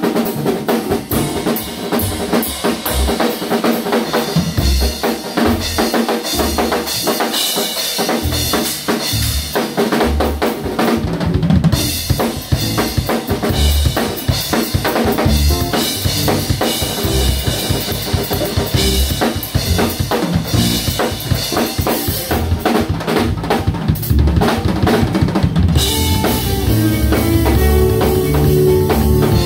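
Jazz drum kit solo: busy snare, rimshot and bass drum strokes under ringing cymbals. About 26 seconds in, the band comes back in, with bass, keys and guitar playing under the drums.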